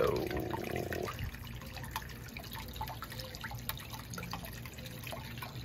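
Water trickling from a jacuzzi's wall jet into the shallow bottom of the tub, with faint scattered drips: the tub is filling slowly.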